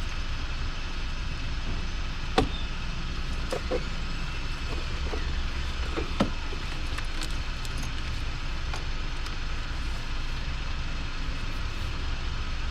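A few light clicks and knocks from hands and tools working a car battery's cable terminal, the sharpest a little over two seconds in and another about six seconds in, over a steady low rumble.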